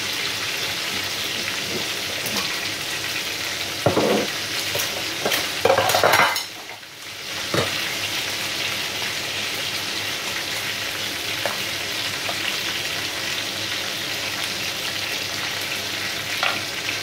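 Chicken drumsticks shallow-frying in hot oil, a steady sizzle with a few louder crackles and spits about four to six seconds in. The sizzle drops away briefly for about a second soon after.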